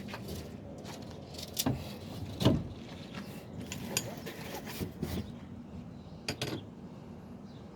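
Metal clicks and knocks as a replacement liftgate gas strut is handled and worked onto its bottom mounting. The loudest knock comes about two and a half seconds in, and a pair of quick clicks comes near the end.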